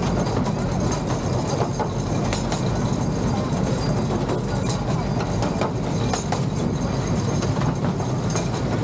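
Miniature ride-on train running along its track: a steady low rumble with scattered irregular clicks.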